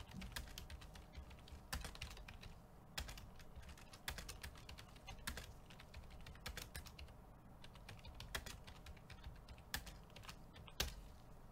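Faint computer keyboard typing: irregular runs of quick key clicks with short pauses between them.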